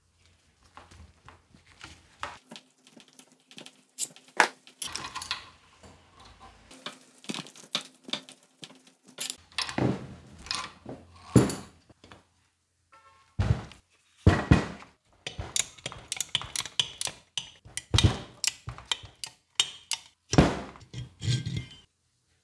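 Metal tools and parts clinking, tapping and knocking on a workbench in an irregular run of sharp strikes, with a short pause just after the middle.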